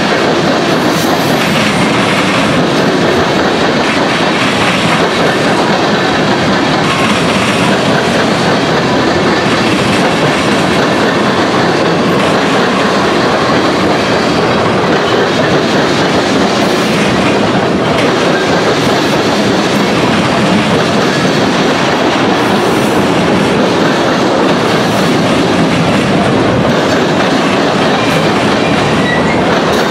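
CSX freight train of tank cars and covered hoppers rolling past close by. A steady, loud run of wheels on rail with clicking over the rail joints.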